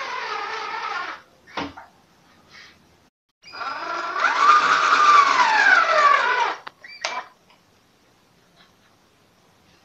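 Cordless drill driving pocket-hole screws into a melamine cabinet panel: a short run whose pitch falls, a knock, then a longer run of about three seconds that rises and then falls in pitch as the next screw is driven home, followed by a click.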